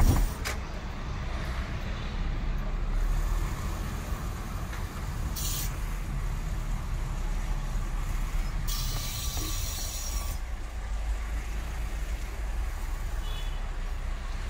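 Car being driven slowly, heard from inside the cabin: a steady low engine and tyre rumble. A short hiss comes about five seconds in, and a longer one around nine seconds.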